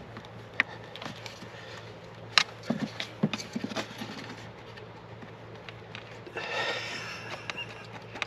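Scattered light clicks and knocks of hands and tools handling parts in a car's engine bay, with a cluster of sharp clicks a few seconds in and a brief rustle near the end.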